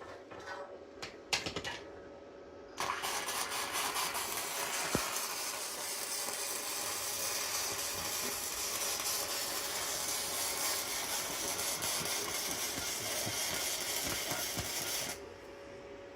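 Flux-core wire welding arc from an ANDELI multi-process welder: a few short sputters as the arc strikes, then a steady crackling sizzle for about twelve seconds, cutting off near the end.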